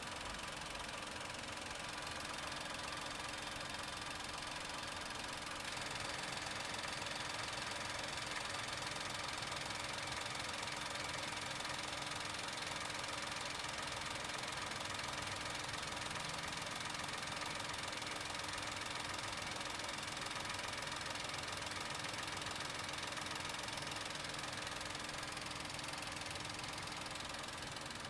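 Perodua Ativa's 1KR-VET 1.0-litre turbocharged three-cylinder petrol engine idling steadily, heard close up with the bonnet open. It is a little louder from about six seconds in.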